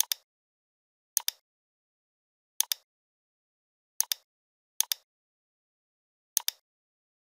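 Computer mouse button clicking about six times at uneven intervals of roughly a second, each click a quick double tick of press and release, with silence between.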